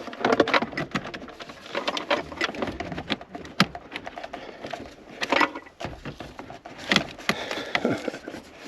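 Car interior parts being handled and fitted back in place: a run of irregular clicks, taps and rattles with a few sharper knocks.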